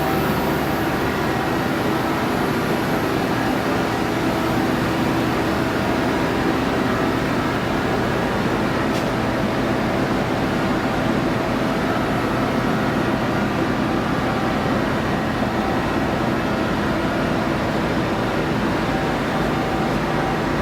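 Machine running steadily: an even hum and rush with several steady whining tones, typical of the Mighty Viper VT-30GL CNC lathe under power.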